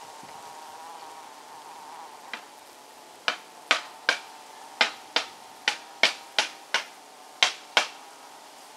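Stingless bees buzzing, a steady faint hum. From about three seconds in, a run of about a dozen sharp clicks, roughly two a second, louder than the hum.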